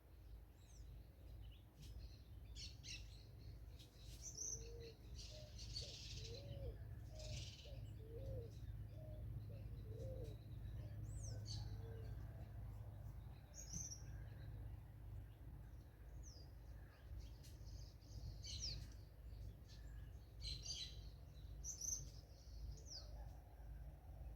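Several forest birds calling with short, high chirps and whistles. Between about 4 and 12 seconds a series of about eight low, hoot-like notes repeats at an even pace. A faint low rumble runs underneath.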